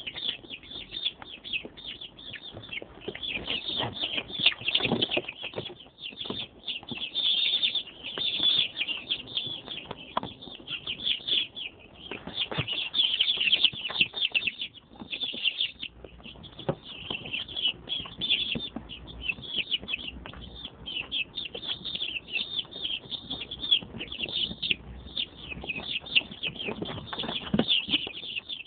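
A brood of young chicks peeping without pause, many high cheeps overlapping, with scattered rustling and wing flutters as they move about.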